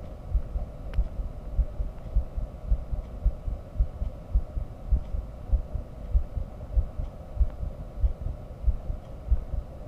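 Human heartbeat heard through a microphone held to the chest: a steady run of low lub-dub thuds.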